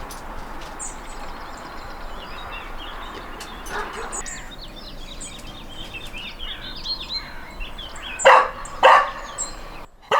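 Birds chirping in many short, high calls over a steady outdoor background, with a dog barking twice loudly near the end; the dog is barking because its walk has been halted.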